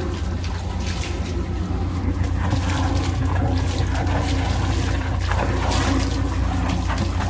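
Hydro jetter running steadily with a constant low engine hum, while its high-pressure water jets a grease-packed kitchen sink drain line and water rushes and gurgles out at the cleanout.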